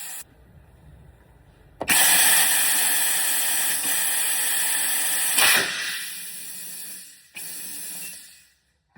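Bead blaster (bead seater) firing compressed air into a stretched tire to seat its bead: a sudden blast about two seconds in, then loud steady hissing of air, a second sharp burst a few seconds later, and the hiss fading away near the end.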